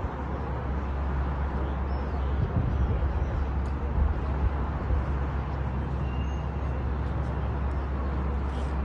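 Steady city background: an even low rumble and hiss of distant road traffic heard from high above.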